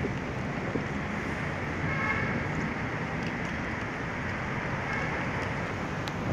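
Steady road traffic noise from cars moving along a city street, with a brief vehicle horn toot about two seconds in.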